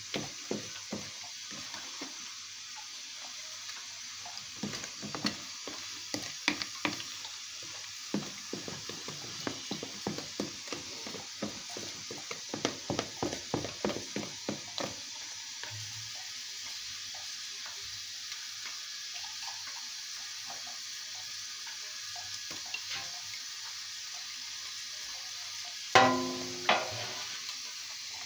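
Wire whisk beating cake batter by hand in a plastic bowl: quick rhythmic taps and clicks of the whisk through the batter and against the bowl, dying down about halfway through. Near the end, one loud metallic clank rings briefly, followed by a smaller knock.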